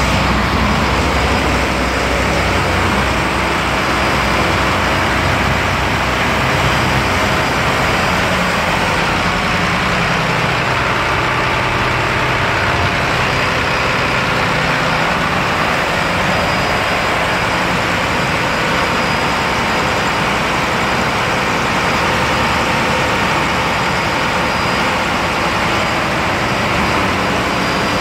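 Engines running steadily in a boat's engine room: an unbroken mechanical drone with a faint steady high whine above it.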